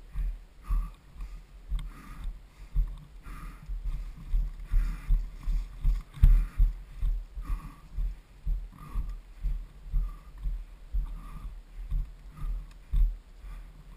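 Footsteps on dry dirt, low thuds about twice a second at an even walking pace, with light rustling of clothing and gear between steps.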